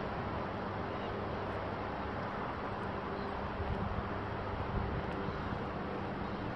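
Steady wash of highway traffic from the road below, mixed with wind on the microphone.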